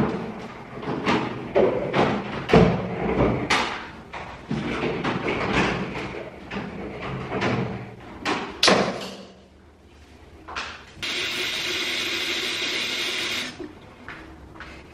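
Knocks and thumps from a plastic portable air cooler being moved and handled. A few seconds later a kitchen tap runs steadily into a plastic bottle for about two and a half seconds, then is shut off abruptly.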